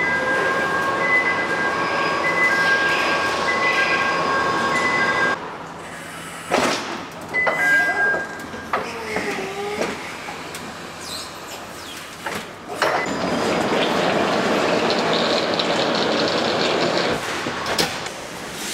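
Warehouse loading machinery: an electronic warning beeper sounding repeatedly over a steady machine hum, then knocks and clanks with a short motor whine as a forklift pushes a shrink-wrapped pallet into a refrigerated truck. A steady rushing noise of machinery follows from about thirteen seconds in.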